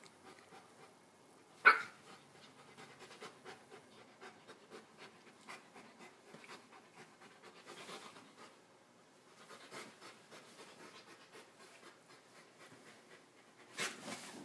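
Bernese mountain dog panting steadily during play, with one short sharp sound about two seconds in and another near the end.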